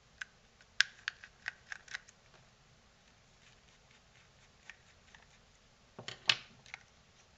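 Small screwdriver clicking and scraping on the screws and plastic housing of a CCTV dome camera as the two screws holding its LED board are undone: a quick run of sharp clicks in the first two seconds, then fainter ticks. About six seconds in comes a loud cluster of knocks as the screwdriver is set down on the wooden bench.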